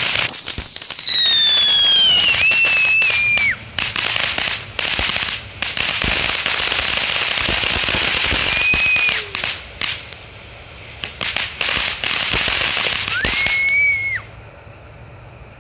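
World Class Fireworks 'Whatchamacallit' fountain burning, with a loud, crisp, dense crackle over a spraying hiss. A whistle falls in pitch through the first two seconds, and short steady whistles come about two, nine and thirteen seconds in. The fountain dies down about fourteen seconds in.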